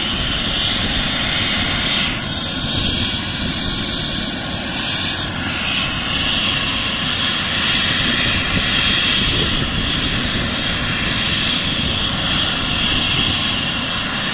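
Airbus H135 helicopter running on the ground with its rotors turning: a steady turbine whine from its twin turboshaft engines over the rush of the rotors.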